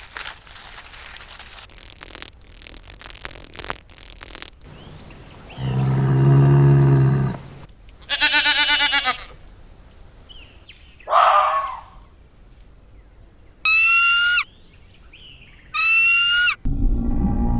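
A string of recorded farm-animal calls one after another: a long low cow moo about six seconds in, a quavering bleat, a short cry, and two identical high calls with a slight downward slide near the end.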